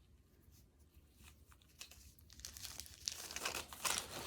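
Gift wrapping paper crinkling and tearing as a present is unwrapped by hand, starting about two seconds in and getting louder near the end.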